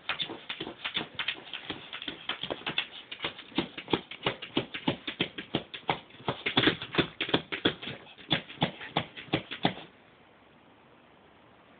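A Shih Tzu puppy scratching and pawing rapidly at a plastic storage tub, about five quick strokes a second. It stops suddenly about ten seconds in.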